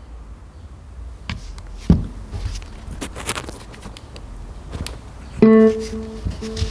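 Music played back through a JBL Flip 5 portable Bluetooth speaker. Scattered sharp percussive hits come first; about five and a half seconds in, a sustained pitched note starts, which then pulses in a steady rhythm.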